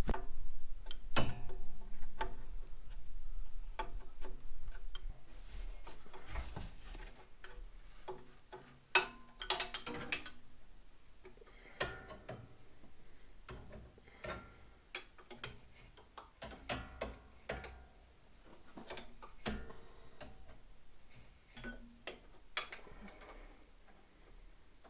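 Ratchet wrench clicking, with irregular clinks and knocks of hand tools on metal, as the carburetor's mounting nuts are worked loose. A few sharper knocks stand out, around a third of the way in and again later.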